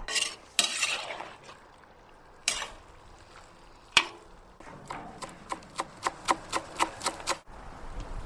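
A metal spoon stirs chunks of meat in a cast-iron cauldron, with one sharp clank of the spoon against the pot about four seconds in. Then a knife chops on a wooden cutting board, about four quick strokes a second for a couple of seconds.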